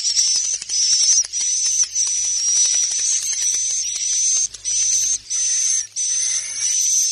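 Swiftlet roosting lure call (suara inap): a dense, high-pitched, hissy twittering of swiftlets with short repeated chirps and brief breaks about once a second. It is a recorded call played in swiftlet houses to draw swiftlets in to roost.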